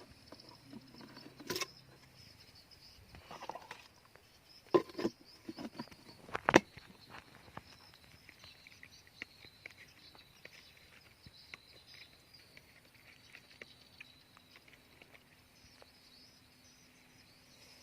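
Faint, steady high-pitched insect chirring with a few sharp clicks and knocks, the loudest about five and six and a half seconds in.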